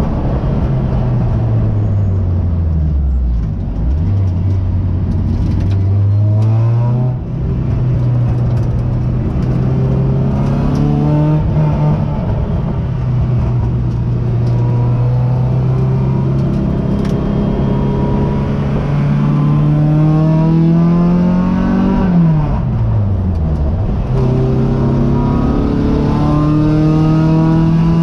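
Race car engine heard from inside the car on track. The revs fall under braking in the first few seconds, climb again with a gear change around seven seconds, hold a long pull, then drop sharply under braking about twenty-two seconds in before climbing hard again.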